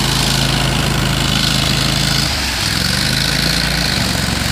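Argo amphibious ATV's engine running steadily while its spinning wheels churn through lake water with a continuous rushing splash. A little over two seconds in, the engine note dips and then climbs again.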